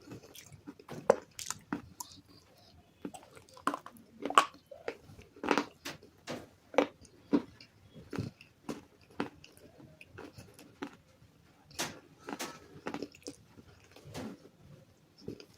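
Close-miked crunching and chewing as hard, brittle bars coated with chalk paste are bitten and chewed, in irregular sharp crunches about one or two a second.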